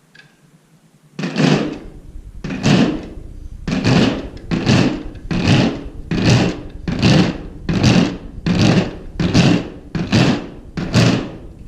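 A marching man sound-effect instrument played in a steady march rhythm, imitating many soldiers marching. About a second in it starts: about a dozen even strokes, a little more than one a second, each a short clatter rather than a single click.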